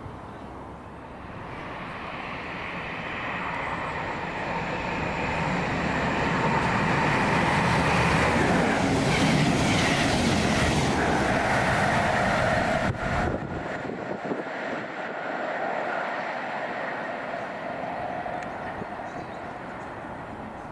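A ScotRail train running past: its noise builds over several seconds, is loudest around the middle, and fades through the second half.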